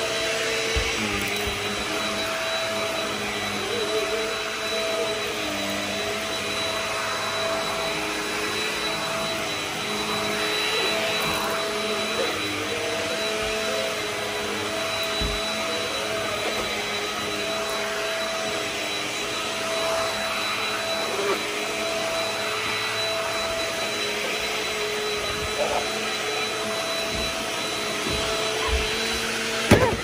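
Stick vacuum with a powered brush head running steadily over carpet, with a thin high whine held over the motor noise. There is a sharp knock near the end.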